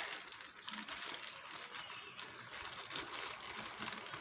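Plastic packaging crinkling and rustling in irregular little crackles as a parcel is handled and opened.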